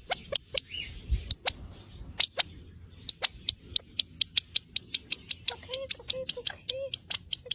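Birds calling: a run of sharp clicking notes, irregular at first and then steady at about four a second, with a few short low hooting notes about two-thirds of the way through.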